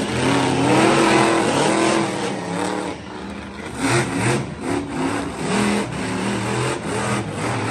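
Monster truck engines revving hard, the pitch rising and falling as the trucks accelerate and turn. The loudest run is in the first two seconds, followed by shorter surges.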